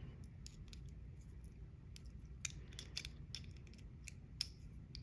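Small metal parts of a GOAL S pin-tumbler lock clicking and ticking as they are handled during disassembly, with a sharper click about halfway through and another near the end, over a steady low hum.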